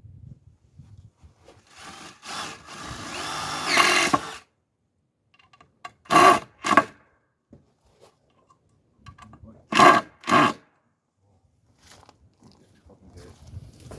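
Cordless drill driving screws into wooden fence posts or braces: one longer run of about two seconds that builds and then stops sharply, followed by two pairs of short bursts.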